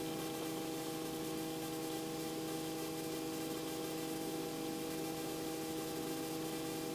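Steady hum and hiss of a Robinson R44 helicopter's engine and rotors while it hovers down to a landing, heard through the cockpit intercom. Several fixed tones sit over an even hiss and hold level throughout.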